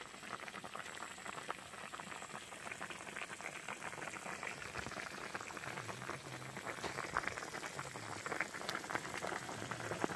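Food cooking in a pan over heat, bubbling with a dense, steady crackle that grows slightly louder toward the end.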